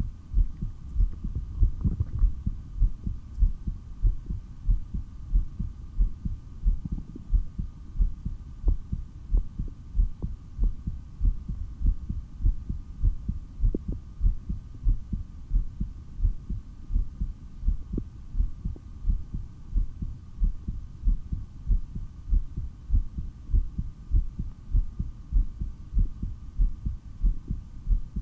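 A person's heartbeat heard through a stethoscope: strong, regular, pounding low thumps. A faint steady tone runs underneath.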